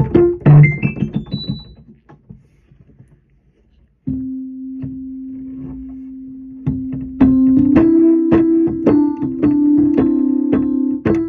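Electric keyboard playing: a quick climbing run of high notes that dies away, a pause of about two seconds, then a steady held low note about four seconds in, with a string of struck notes joining it over held tones from about seven seconds.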